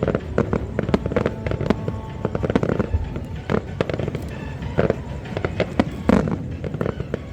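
Aerial fireworks bursting in rapid succession: many sharp bangs and crackles overlapping. The loudest burst comes about six seconds in.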